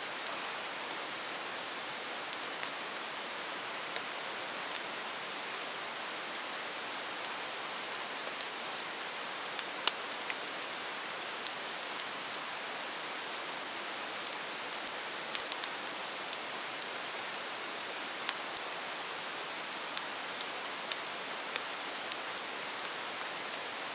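Steady rain falling, an even hiss broken by irregular sharp ticks and pops, about one or two a second.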